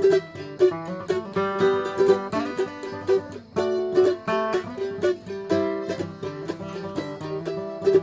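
Background instrumental music on plucked string instruments, picked in quick, bright notes.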